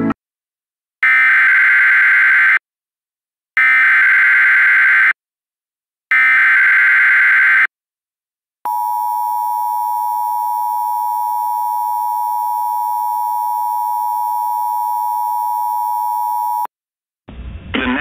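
Emergency Alert System SAME header: three bursts of shrill digital data tone, each about a second and a half long, followed by the two-tone EAS attention signal held steady for about eight seconds and cutting off sharply. A voice starts reading the alert near the end.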